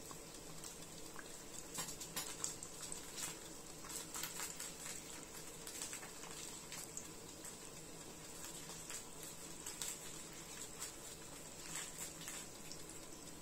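Buns frying in oil in an electric pot: faint, irregular crackling and popping.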